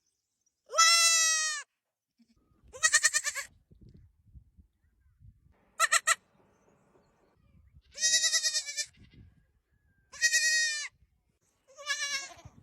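Baby goats (kids) bleating: six short, high-pitched calls, each under a second long, with one to two seconds between them.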